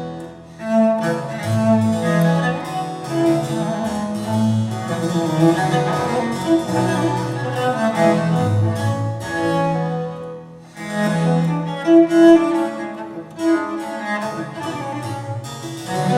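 Instrumental music without singing, played back through floorstanding hi-fi loudspeakers and recorded in the room, with brief dips in level about half a second in and again near ten and a half seconds.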